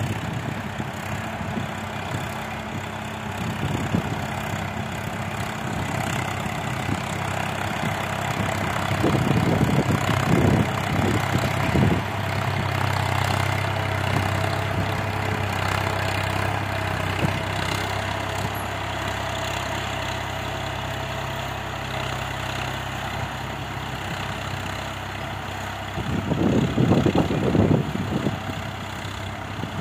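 Swaraj 963 FE tractor's three-cylinder diesel engine running steadily under load while pulling a five-tine cultivator through dry soil. The sound swells twice, about ten seconds in and near the end.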